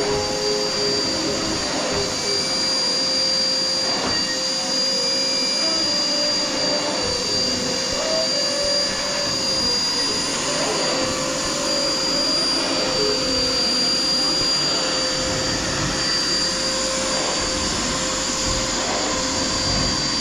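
Canister vacuum cleaner running steadily as its floor nozzle is pushed over a carpet: a constant rushing hiss with a high, steady motor whine.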